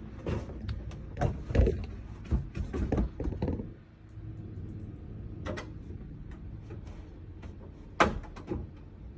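Diorama pieces being handled and fitted together: a run of knocks and clacks over the first few seconds, then a pause, then two sharp knocks near the end, over a steady low hum.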